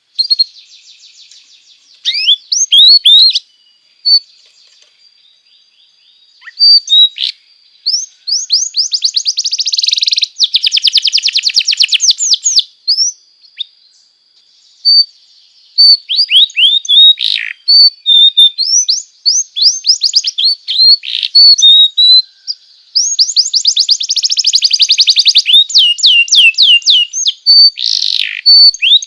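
Domestic canary singing a long, continuous song of fast trills and rolls of rapidly repeated notes, broken by sharp sweeping whistles. The loudest trill runs come twice.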